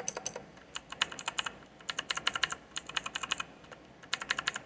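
Typing on a mechanical keyboard with unmodified Outemu Blue clicky switches: quick runs of sharp clicks in several bursts with short pauses between.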